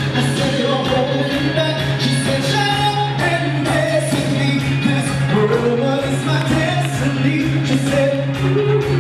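Music with singing: a song with a steady melody and a sustained low bass note underneath.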